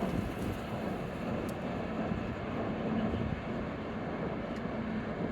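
Steady drone of a Sado Kisen ferry under way, its engines humming low beneath an even rushing noise.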